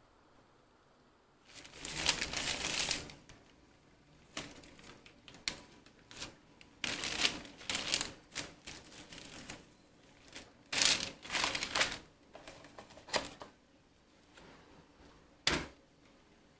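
Hands handling a sheet of dried seaweed on a plastic-wrapped bamboo rolling mat: a run of short, irregular clattering and rustling noises that starts after a quiet first second or so.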